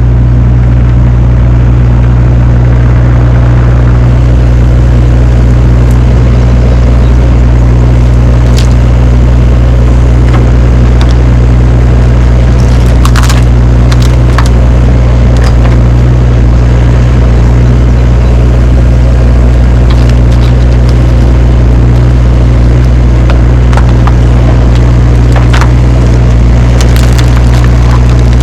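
Deere excavator's diesel engine running steadily under work, with scattered sharp cracks and snaps of vines and debris being crushed, clustered around the middle and near the end.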